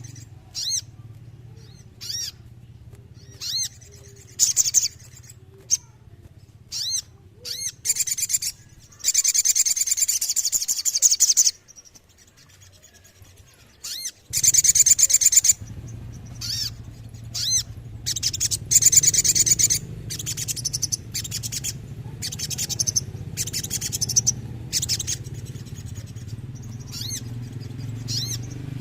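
Sogon (sogok ontong), a spiderhunter, singing: sharp, high, falling single notes fired off in quick bursts, broken by several rolling trills of one to two seconds. A steady low hum runs underneath, dropping out for a moment near the middle.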